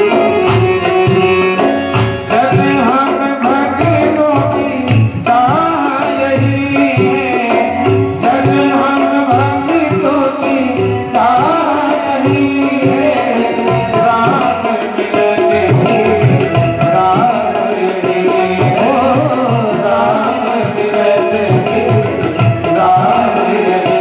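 Devotional song: a voice singing a wavering melody over a steady tabla rhythm.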